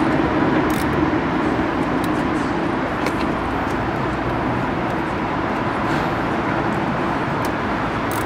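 Steady traffic rumble, with a few faint, short clicks.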